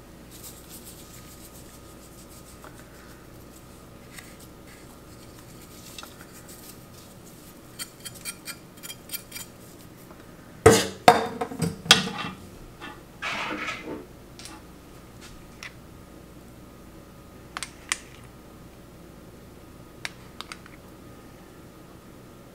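Kitchen utensils clattering and clinking: a metal slotted spoon and measuring spoons knocking against a large bowl of sliced cucumbers and onions. There is a burst of loud knocks about halfway through, with a short scraping stir after it, and a few lighter clinks later.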